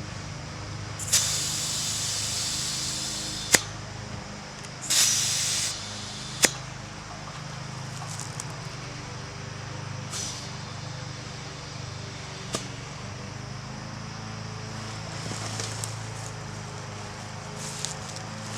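Compressed air hissing in two bursts, a long one of about two and a half seconds and then a short one, each ended by a sharp click, over a steady low hum.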